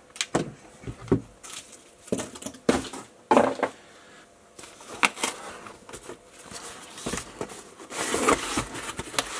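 Packaging being handled during an unboxing: plastic wrapping rustling and crinkling, with scattered clicks and knocks of parts being moved, and a longer rustle near the end.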